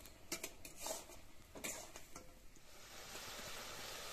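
A metal spatula scraping and clinking against a steel wok as pork pieces are stirred, a few sharp clicks in the first two seconds. Meat frying in the wok gives a steady sizzle that grows louder in the second half.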